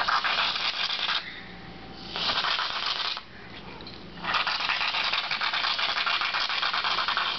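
An aerosol can spraying onto a pancake in three sputtering spurts: a short one, a second short one about two seconds later, and a long one from a little past the middle.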